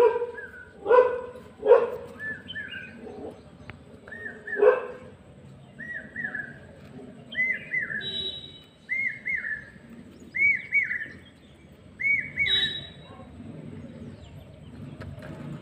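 A dog barks several times in the first five seconds while a bird calls over and over in short paired chirps, about every second and a half; a low steady rumble comes up near the end.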